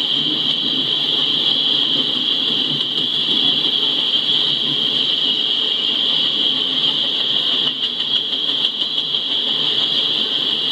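Empty coal hopper cars rolling past on the rails with a steady low rumble, under a louder, constant high-pitched hiss.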